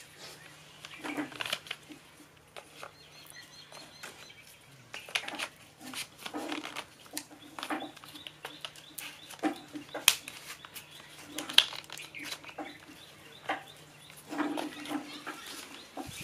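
Empty cardboard firecracker tubes in a rubber-banded bundle being knocked and tapped into line by hand, making irregular light knocks and clicks.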